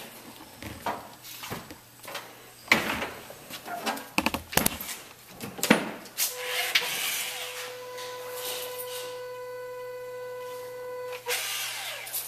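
Makita cordless caulking gun's electric motor running with a steady whine for about five seconds, starting about halfway through, after a few knocks and clicks of handling.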